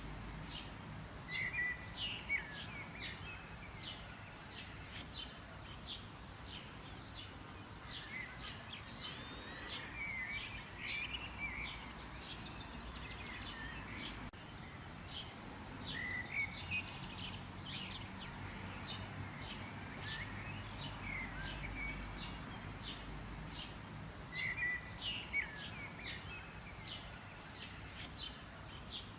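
Songbirds chirping and calling: quick high chirps in repeated runs, with occasional falling call notes, over a steady low background rumble.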